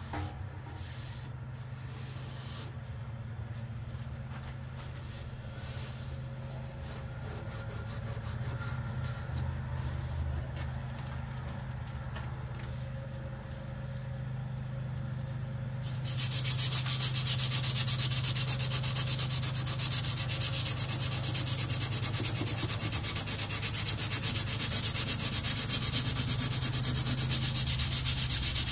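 Sandpaper being rubbed by hand along a KA-BAR knife's steel blade to take it back to bare silver before bluing. At first it is quiet rubbing. About halfway through it turns to loud, rapid back-and-forth sanding strokes.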